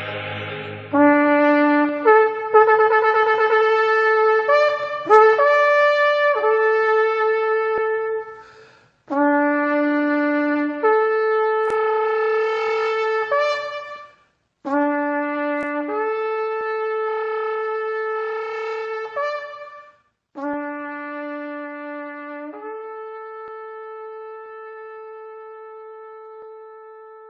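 A horn blown in four long blasts. Each blast starts on a low note and steps up to a higher held one, with a quick wavering run in the first blast. The last note is held and slowly fades.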